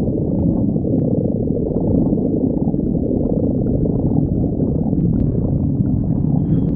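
A person's stomach growling: a continuous low rumble.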